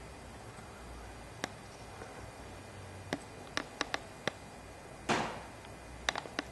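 Scattered sharp clicks and ticks, a cluster of them in the middle and a few more near the end, with one short rustling scrape about five seconds in, over a low steady hum.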